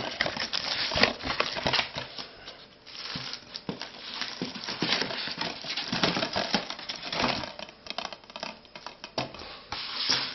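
Packaging being handled as a Blu-ray case is worked out of its shipping box: irregular crinkling, scraping and small clicks that come in uneven spurts.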